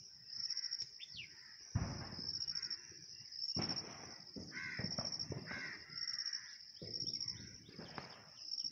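Crows cawing over a steady, high-pitched pulsing chirr, with a few sudden low thumps: one about two seconds in, others near the middle and near the end.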